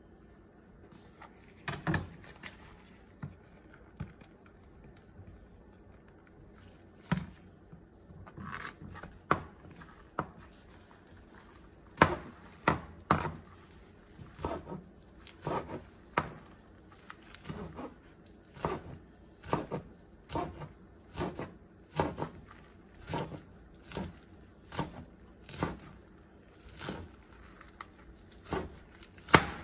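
Chef's knife chopping a bunch of pumpkin flowers on a plastic cutting board. The blade knocks against the board, scattered at first and then about once a second, with crinkling of the soft petals.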